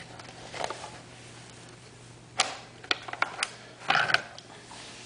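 Clicks and a scrape from an airsoft P90's receiver as it is slid forward and apart. Several sharp clicks come first, the loudest about halfway through, then a short scrape near the end.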